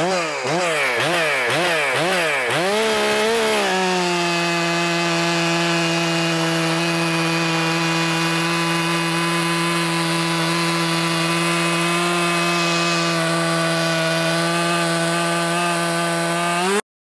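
Stihl MS 400 C two-stroke chainsaw running a Husqvarna C83 chain: the engine is revved up and down several times, then held at a steady full-throttle pitch as the chain bites into and cuts through a large log for about 13 seconds. The sound cuts off suddenly near the end.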